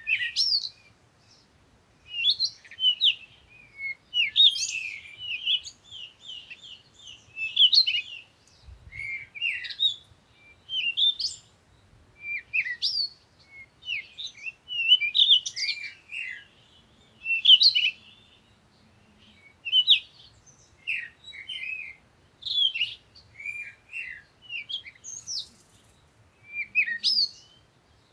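A small bird chirping and twittering in quick short phrases, one after another every second or two.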